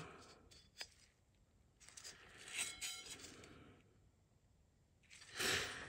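Faint handling of metal transmission parts on the bench: a small click about a second in, then light scraping with brief metallic clinks, and a louder rustle near the end.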